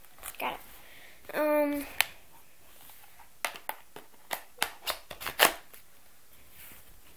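Plastic toy guns being handled and put together: a string of sharp separate clicks and knocks in the second half, with one short steady tone about a second and a half in.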